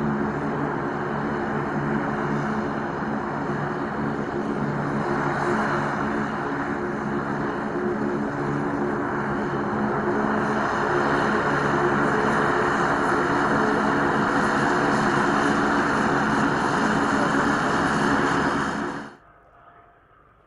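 Lockheed Martin C-130J Hercules taxiing, its four Rolls-Royce AE 2100 turboprops with six-bladed propellers running steadily: a low propeller hum over turbine noise. The sound cuts off suddenly near the end.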